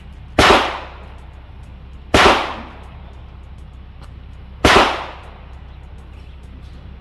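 Three handgun shots, roughly two seconds apart, each with a short echoing tail.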